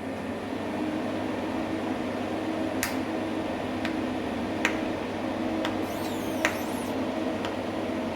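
Arc Machines orbital pipe welding system running: a steady machine hum with sharp ticks about once a second.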